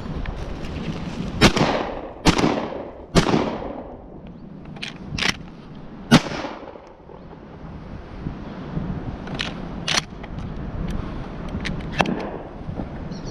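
Benelli shotgun fired three times in quick succession, each blast trailing off in a long echo, then a fourth, sharper shot about three seconds later. Softer clicks and knocks follow.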